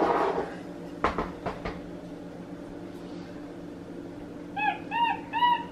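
A brief scuffle as the capuchin monkey handles its cup, then a few sharp knocks of the cup against the stone counter. Near the end the capuchin gives four short, squeaky chirps, each rising and falling in pitch.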